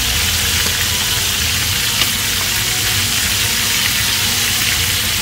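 Chicken thighs searing in hot oil in a pan, with a steady sizzle.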